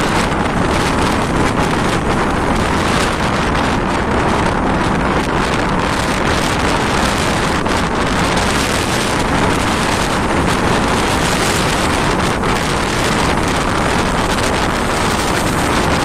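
Strong wind buffeting the microphone, with storm waves breaking against a seawall and washing over the embankment. Steady, loud noise without let-up.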